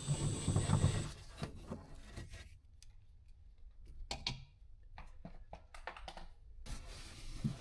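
Faint, irregular clicks and light taps of a 10mm wrench and socket working the door handle's mounting nut inside a car door.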